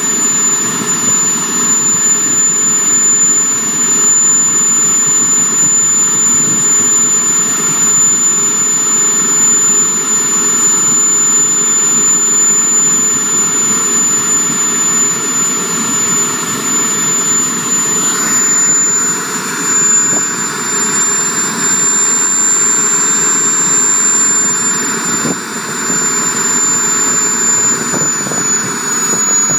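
Jet Central Rhino model gas turbine in a Comp ARF Eurofighter Typhoon running on the ground: a steady high whine over a rushing exhaust noise, which grows stronger about eighteen seconds in.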